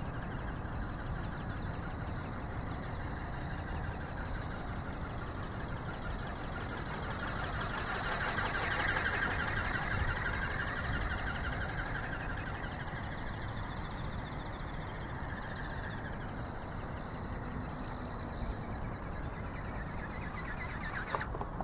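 Electric ornithopter in flight: its geared brushless motor and flapping-wing drive make a steady high whine that pulses rhythmically, swelling loudest about eight to nine seconds in as it passes close and then fading.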